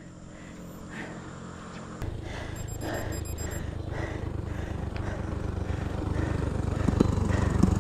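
Wind buffeting the microphone of a moving bicycle rider: a low rumble that starts about two seconds in and grows steadily louder.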